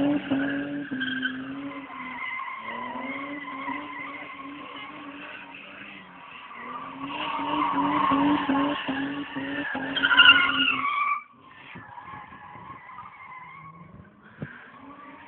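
Holden VS Commodore ute doing a burnout: the engine is held at high revs with the tyres skidding, growing louder through the middle, then the revs drop off suddenly about eleven seconds in and the engine runs much quieter.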